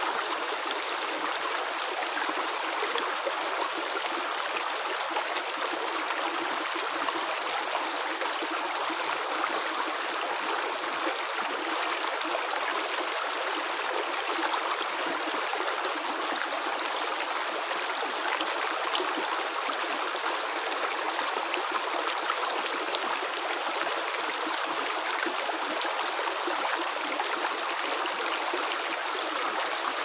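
Shallow rocky stream flowing steadily, water splashing and bubbling over stones in a small cascade, with almost no deep rumble.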